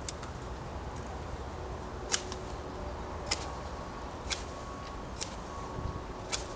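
Knife blade shaving a wooden peg, a crisp click as each cut comes through, about one a second, as the peg's tip is tapered to a secondary bevel.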